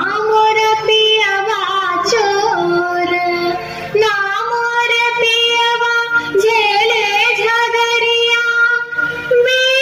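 A woman singing a Dom Kachh folk song in a high voice, drawing out long held notes with quavering ornaments, with a brief break about four seconds in.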